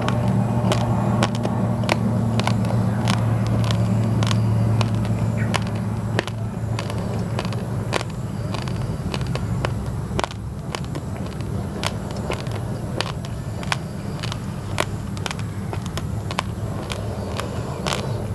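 Raw basmati and glutinous rice grains crunched between the teeth, a rapid irregular run of sharp cracks. Under it a steady low engine hum is strong at first and drops away after about six seconds.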